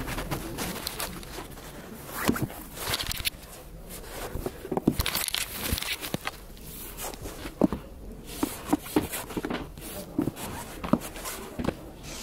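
Handling noise of books being carried and set down on a library's self-service return kiosk: scattered, irregular knocks, taps and rustles.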